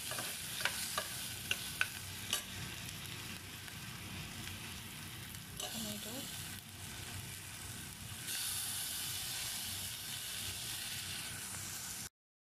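Onions, garlic, chillies and tomato sizzling in hot oil in an aluminium pressure cooker while being stirred, a spoon clicking against the pot several times in the first couple of seconds. The sizzle grows louder about eight seconds in and holds for about three seconds.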